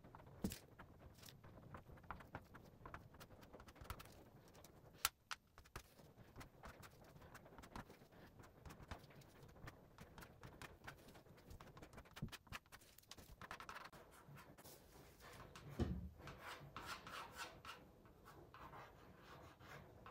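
Faint rubbing and scratching from hand work on a zinc litho plate, with scattered small clicks, a sharp tap about five seconds in and a low knock near sixteen seconds.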